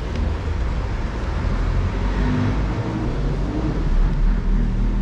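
Ocean surf and wind at the shore making a steady, deep rumbling wash.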